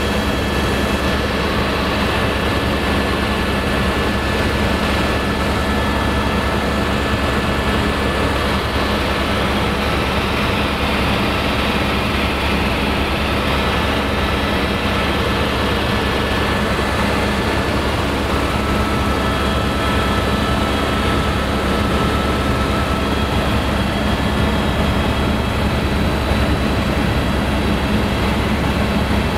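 Helicopter in flight heard from inside its cabin: a loud, steady drone of engine and rotor with a deep low rumble and several constant high whining tones.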